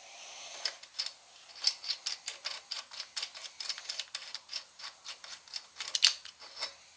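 Ratchet wrench clicking in a run of quick, light ticks as the rocker nut is backed off on a small-block Chevy cylinder head, with small metal-on-metal clicks from the rocker arm and pushrod.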